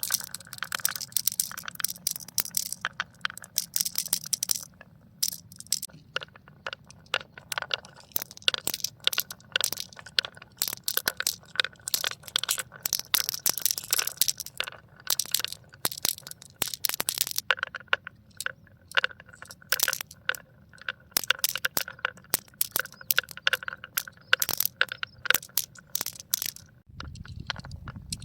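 Marbles rolling and clacking down a marble run track: a rapid, uneven stream of clicks and knocks over a faint rolling whirr. Near the end the clicking thins out and a low hum comes in.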